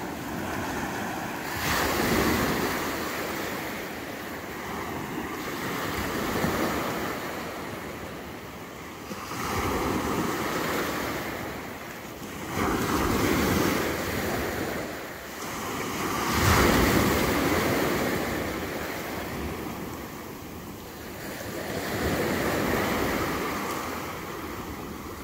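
Waves breaking on the beach, the wash swelling and falling back every few seconds, with wind on the microphone.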